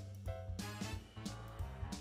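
Background music with a steady beat, plucked-string chords over a deep bass line.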